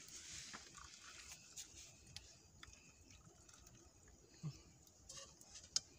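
Water poured from a small pot into a plastic cup, a soft trickle at the start. Then faint clicks and light knocks as the pot and cups are handled, with one sharp click near the end.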